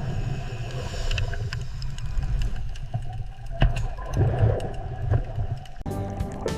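Dolphin sound clip that plays as a steady low underwater rumble, with scattered sharp clicks and a faint wavering whistle about four seconds in.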